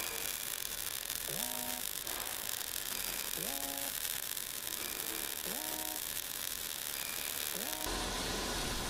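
MIG welding arc hissing steadily as a root pass is run around a 12-inch steel pipe joint, with a faint rising tone that recurs about every two seconds. Near the end the hiss stops and gives way to a low steady hum.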